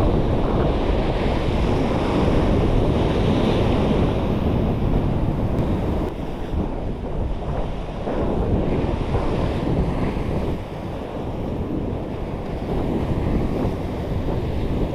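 Wind buffeting the microphone over ocean waves washing against a rock shoreline, a steady rumble that eases a little about halfway through.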